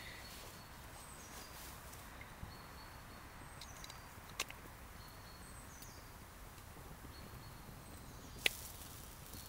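Quiet woodland ambience with faint, high bird calls repeating every second or two, broken by two sharp snaps, the louder one near the end.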